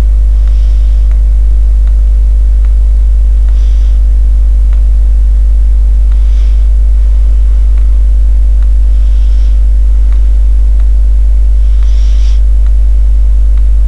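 Loud, steady electrical mains hum with a stack of overtones. Faint soft hisses come about every three seconds, with scattered faint ticks.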